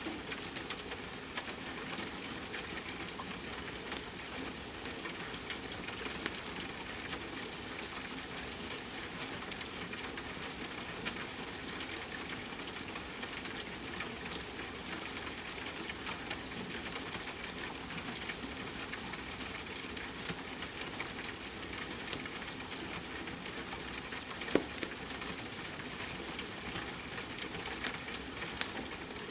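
Steady hiss of rain mixed with the crackling of a wood fire, which has many small clicks and a few sharper, louder pops.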